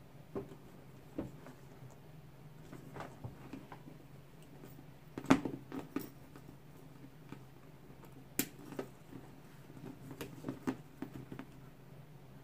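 Handling noise from a Louis Vuitton Speedy 25 Damier Ebene canvas handbag: scattered soft taps and clicks of the canvas and its brass zipper pull and padlock being moved. There are two sharper clicks, the loudest about five seconds in and another about eight seconds in.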